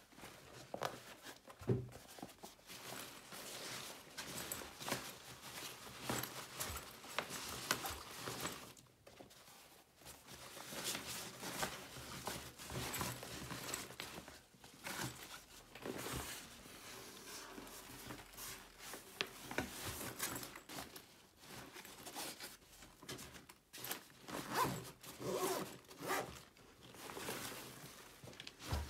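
Zippers being pulled and nylon fabric rustling as an Under Armour Undeniable 5.0 duffel bag is handled and a pair of sneakers is packed into it, with irregular scrapes and light knocks.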